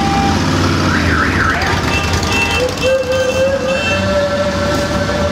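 Cruiser motorcycles rumbling at low speed in a slow procession, with horns sounding over the engines: a wavering tone about a second in, then a long steady horn blast from about halfway through.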